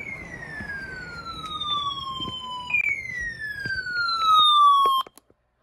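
Electronic emergency alert tone: a siren-like pitch that falls steeply and restarts high about every two and a half seconds, three sweeps in all, then cuts off abruptly near the end.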